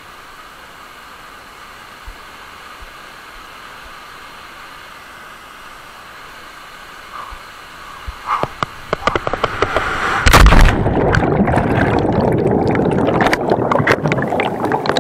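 Faint steady rush of river rapids below, then from about eight seconds in a rising rush of air and knocks on a body-mounted camera's microphone as a person falls from a cliff, a loud splash into the river about two seconds later, and muffled underwater bubbling and gurgling after it.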